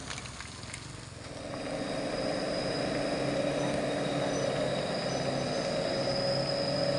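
Loaded cargo truck's diesel engine running with a steady whine, getting louder about a second in.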